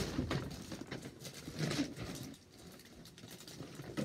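Scuffling, rustling and bumps as a door is pushed back and forth against a child's foot, with short muffled grunts or hums from a child. Loudest at the start and again about a second and a half in, quieter near the end.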